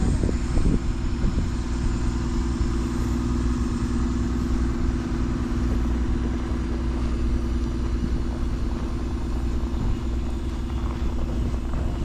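Idling engines of stopped cars and a city bus in jammed traffic, a steady low-pitched hum that holds even throughout.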